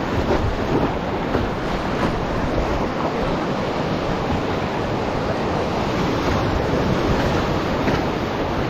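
Whitewater rapids rushing steadily around the raft, with wind buffeting the microphone.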